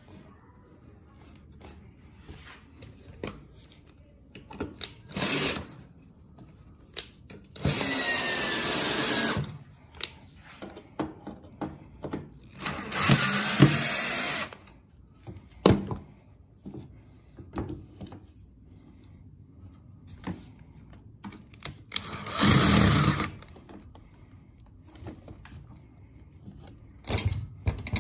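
Cordless drill driving screws into wood in four or five short runs of up to about a second and a half each, with clicks and knocks of handling between the runs.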